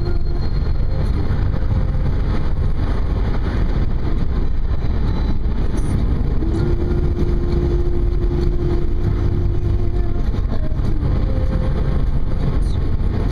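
Car driving with a steady low rumble of engine and road noise.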